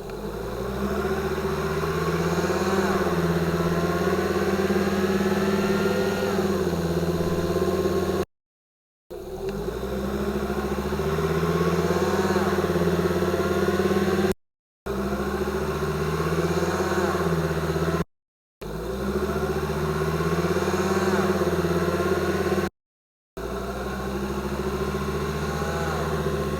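Drivetrain of a 2005 Volvo XC90 2.5T AWD picked up by a contact microphone on the transfer case, in five separate takes of pulling away from a stop that start and cut off abruptly. Each take has a steady low hum under whines that climb with speed and fall back at each upshift. The owner takes the whine for a gear whine from the transfer case or bevel gear; it comes in as the revs reach 2,000 rpm and second gear engages.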